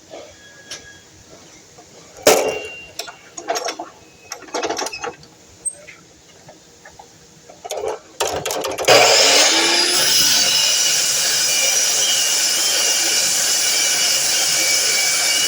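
Knocks and clatter of material being handled, then about nine seconds in a DeWalt miter saw's motor starts, its whine rising as it spins up, and runs on loud and steady.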